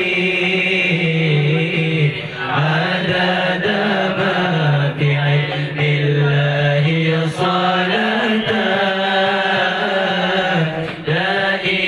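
Chanted Arabic salawat, a blessing on the Prophet Muhammad, sung in long held notes that bend slowly in pitch without a break.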